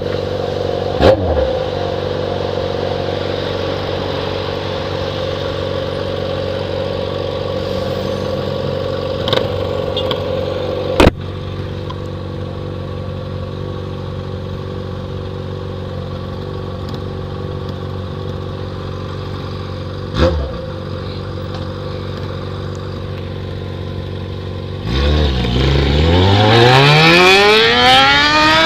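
Yamaha XJ6's inline-four through a new 4-into-1 straight-pipe exhaust, running at a steady engine speed with a few sharp clicks, then revving hard in a steeply rising sweep near the end, the loudest part.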